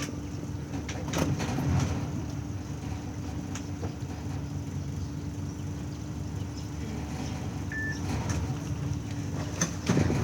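Boat engine idling steadily with a low hum, and a few sharp knocks against it.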